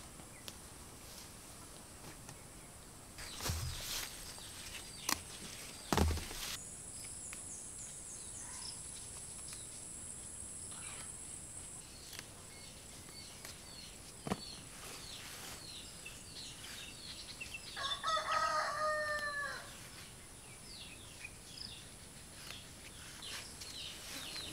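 A rooster crows once, a drawn-out call of about a second and a half that falls at its end, about three-quarters of the way through, over rural outdoor ambience. A few sharp snaps come in the first quarter, and a thin steady high tone runs for several seconds in the first half.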